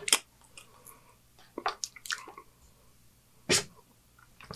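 A few sparse, short wet clicks and smacks of the mouth and lips, picked up by a close microphone, with one louder knock about three and a half seconds in.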